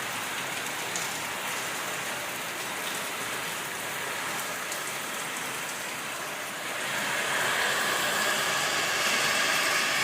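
Heavy rain falling steadily during a thunderstorm, getting louder about seven seconds in.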